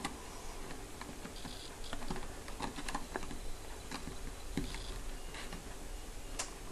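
Faint, scattered small clicks and taps of a plastic housing being handled as its snap-on cover is pressed into place over the wires.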